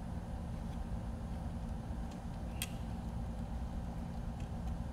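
A steady low background hum, with a few faint clicks of wires and plastic parts being handled inside an opened radio transmitter, and one sharper click about two and a half seconds in.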